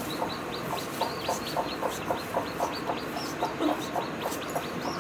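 Newly hatched chicken chicks peeping, a rapid run of short high calls several times a second, with lower repeated calls beneath them.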